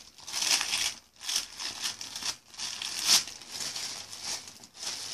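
Clear disposable plastic gloves crinkling irregularly as small hands squeeze and roll chocolate cookie dough, loudest a little after three seconds.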